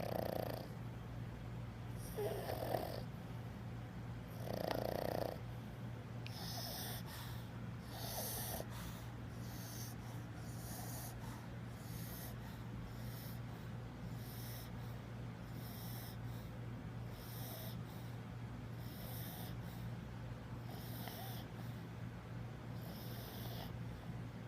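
An 11-year-old pug snoring in its sleep, one wheezy snore about every second and a half. The snores about two and five seconds in are the loudest.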